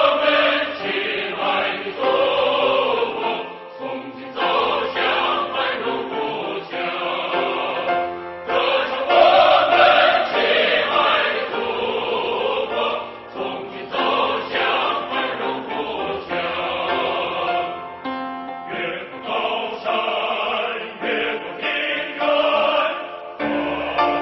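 Background music with singing voices.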